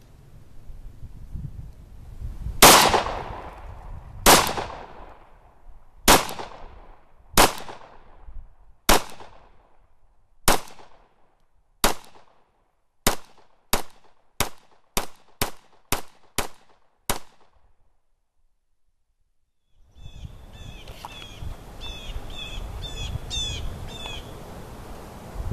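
Glock 19 Gen4 9mm pistol firing: about seven shots spaced a second and a half apart, then about ten quicker shots about two a second. After a pause, birds chirp over a steady outdoor background.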